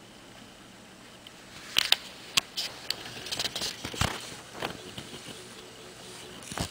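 Handling noise: quiet room tone, then from about a second and a half in, irregular clicks, taps and short rustles of plastic snake tubs and the camera being moved.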